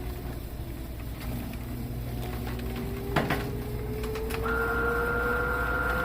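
Small electric motor whining, its pitch slowly rising, with a sharp click about three seconds in and a higher whine joining about four and a half seconds in.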